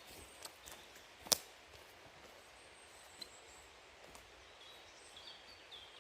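Faint outdoor woodland ambience with small birds chirping now and then, a few short high calls bunched near the end. A sharp click about a second and a half in stands out as the loudest sound, with a smaller click a couple of seconds later.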